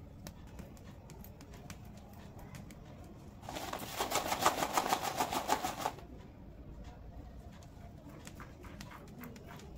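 Hand-embroidery needle pricking in and out of fabric stretched tight on a frame while a string of gold beads is couched along a neckline: faint, irregular clicks. For about two and a half seconds in the middle, a louder, rapid rustling covers them.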